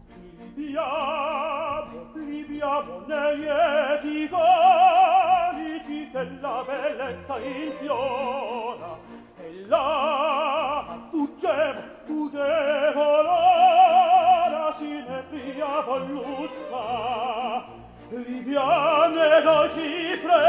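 Operatic singing: a solo voice with wide vibrato sings phrases and holds long notes, over instrumental accompaniment.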